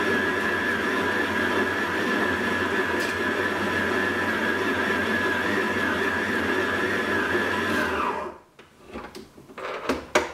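Stand mixer motor running steadily as its dough hook kneads bread dough in a stainless steel bowl, a steady whine. About eight seconds in it is switched off and winds down with a falling pitch, followed by a few clicks and knocks, the sharpest near the end.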